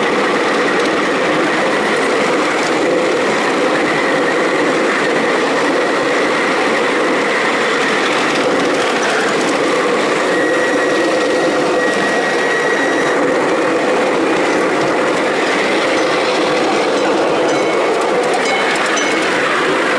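Ridable miniature park-railway train running along its track: steady running noise of the small train and its wheels on the rails, with a constant high whine throughout that grows a little stronger about halfway through.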